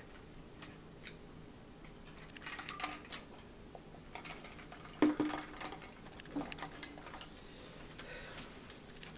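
Quiet tableware and eating sounds at a table: scattered small clicks and rustles. About five seconds in, a sharper knock with a brief ring, as a plastic tumbler is set down on the table.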